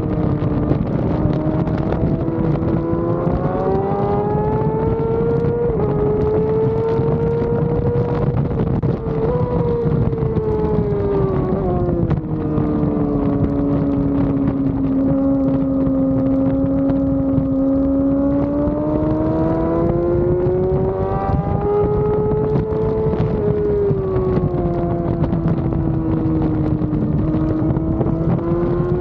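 Yamaha R6 inline-four sport bike engine under racing load from on board, its pitch climbing with two quick steps early on, sinking low through a long middle stretch and climbing again toward the end. Steady wind buffeting on the camera underneath.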